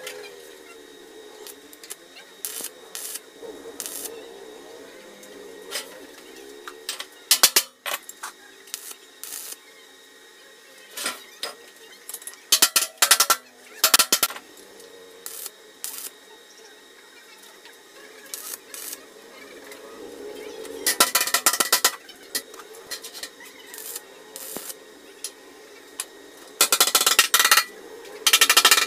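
Arc welding crackling in short bursts as tack welds are laid along the seam of a steel water tank, each tack a fraction of a second to about a second long, with two longer bursts late on. A few sharp clicks come between the tacks.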